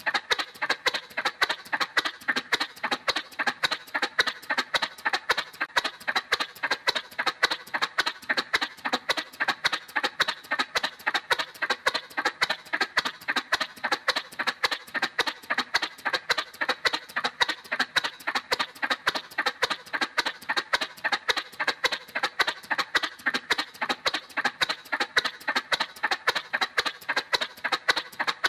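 Cartoon motorcycle sound effect: a steady, even putt-putt of rapid engine pulses, holding the same pace and pitch throughout.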